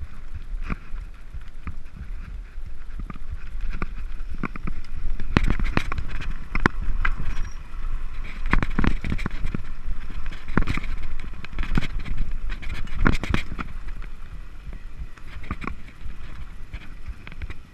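Front-suspension mountain bike descending a rough dirt singletrack at speed: a constant low rumble from the tyres on the ground, with frequent sharp knocks and rattles as the bike goes over bumps, busiest through the middle of the run.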